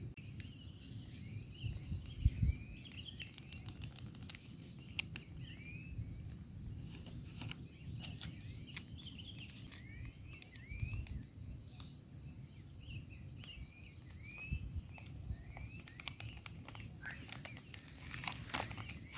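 A bird calling over and over in short curved chirps, among scattered sharp clicks and crinkling and a low rumble of wind.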